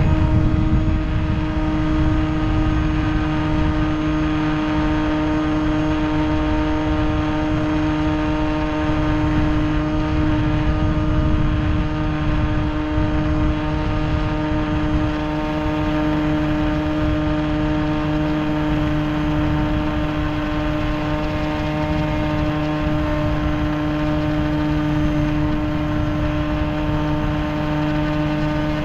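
RC motor glider's electric motor and propeller running steadily at climb power, a steady whine with a rush of wind over the airframe-mounted microphone.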